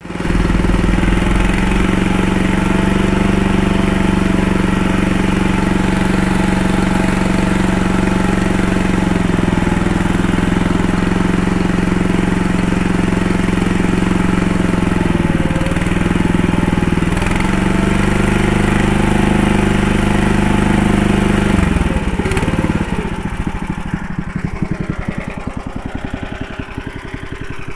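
The AMZhK-8 minitractor's engine runs steadily under load while pulling a single-furrow plough through the soil, with its pitch dipping briefly twice. About 22 seconds in, the revs drop and it slows to a lower, slower chug.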